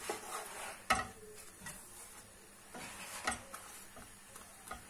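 Wooden spatula scraping and tapping against a non-stick frying pan as a gözleme is pushed round to turn it while it cooks: a few short scrapes and clicks, the sharpest about a second in.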